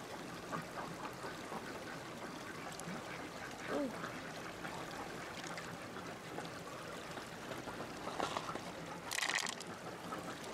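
Steady trickle of running water, with faint wet clicks of fingers working in an opened mussel's flesh. A brief murmur comes about four seconds in and a short hiss near the end.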